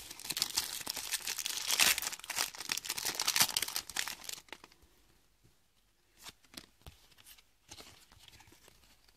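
Foil trading-card booster pack being torn open and crinkled, a dense crackling that lasts about four and a half seconds, followed by quieter rustles and light ticks of the pack and cards being handled.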